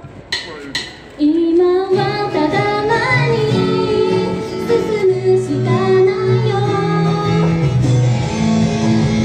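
An idol pop song starts over the stage sound system about two seconds in, after a couple of short clicks and a held rising note: a full backing track with female singing.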